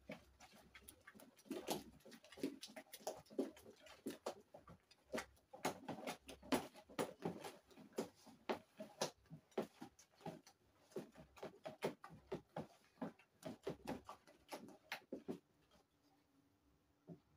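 A stick stirring a large plastic basin of homemade liquid detergent, swishing through the liquid and scraping the bottom in quick, irregular strokes, with industrial salt still not fully dissolved in the mix. The stirring stops about 15 seconds in.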